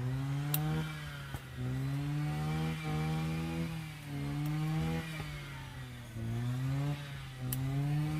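A small engine revving up and down over and over, its pitch rising and falling every one to two seconds without stopping.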